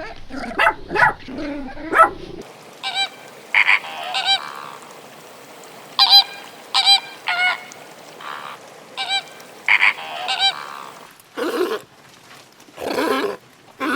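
A dog barks a few times, then after a cut geese honk in a string of short, repeated calls. Near the end come two longer, rougher sounds.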